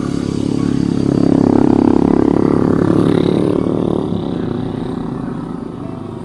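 A motorcycle engine passing close by, growing louder about a second in and fading away after about four seconds.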